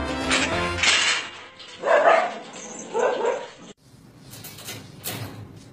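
A dog gives two short, loud barks about a second apart. Then, after a cut, a few sharp clicks from a wire cage door latch being chewed by a cat.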